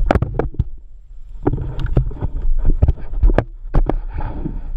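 Irregular hollow knocks and clicks of gear and hands against a plastic fishing kayak's deck, over a low wind rumble on the microphone.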